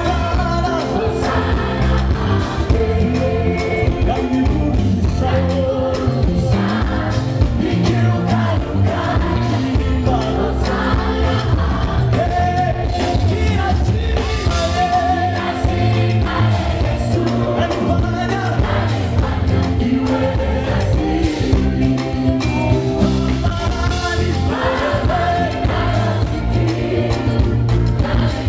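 Live gospel music through a concert PA: a male lead singer with backing vocalists singing over a full band.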